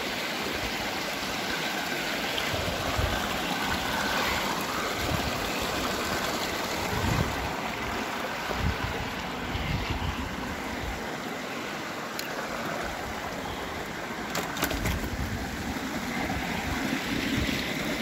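Shallow mountain stream running and trickling over rocks, a steady rushing, with occasional low bumps on the microphone.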